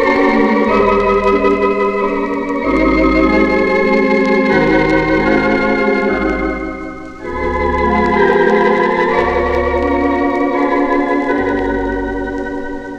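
Organ playing a slow hymn in sustained full chords, with a deep bass note under each chord and the chords changing every two seconds or so. Faint surface clicks from the vinyl record run underneath.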